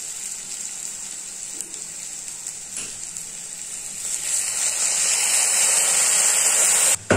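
Chopped onions with garlic and spices sizzling in oil in a kadai. About four seconds in, water is poured in from a ladle and the hiss grows louder, then cuts off suddenly near the end.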